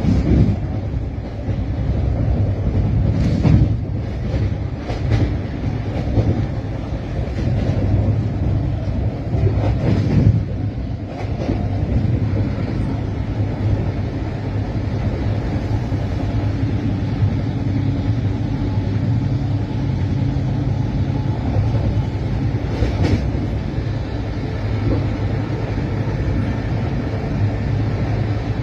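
Running noise inside an air-conditioned railway coach: a steady low rumble, with a few brief knocks and clunks.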